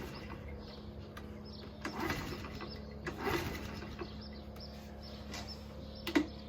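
Honda Chaly mini bike being kick-started with the choke on: repeated kicks a second or two apart, the four-stroke engine turning over without catching, which the owner puts down to stale fuel that won't ignite.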